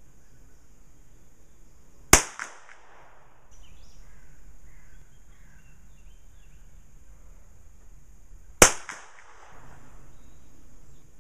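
Two single shots from a .22 rimfire free pistol, about six and a half seconds apart, each a sharp crack trailing off in a short echo.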